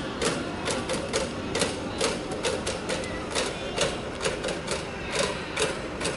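Crowd in the stands clapping in a steady rhythm, about three to four sharp claps a second, as a cheering section keeps time.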